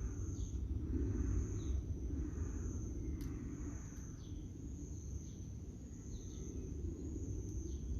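Outdoor ambience: a steady high-pitched insect trill over a low rumble, with a few short faint chirps.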